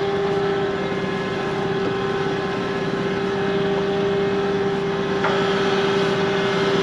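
Tractor engine running at steady revs, with a constant hum.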